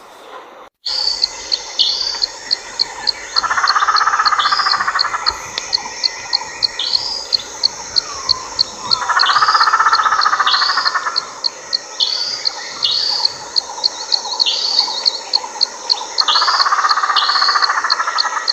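Animal calls: a run of regular high chirps, roughly two or three a second, with a longer, lower buzzing call three times.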